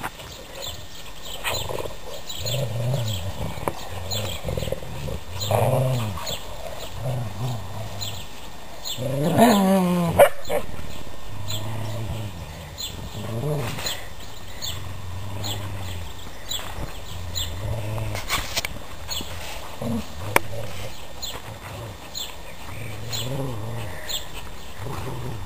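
Dogs growling at each other in play as they tug on a sock, with repeated low growls. About nine seconds in, one gives a louder cry that rises in pitch, followed by a sharp click.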